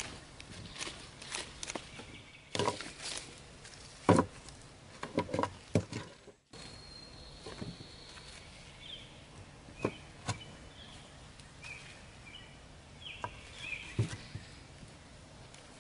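Thin wooden stakes knocking and clicking against a plywood board as they are set upright into its drilled holes, a quick run of knocks in the first six seconds with the loudest about four seconds in, then a few scattered knocks. Short high bird chirps sound in the background in the later part.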